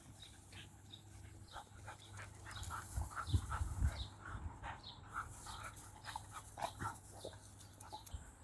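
A dog making many short, high whimpering sounds and panting, with low rumbling bursts about three to four seconds in.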